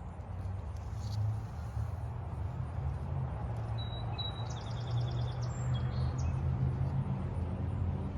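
A small bird calls briefly about four seconds in: a couple of short high chirps, then a quick trill of rapid repeated notes. A steady low rumble runs underneath.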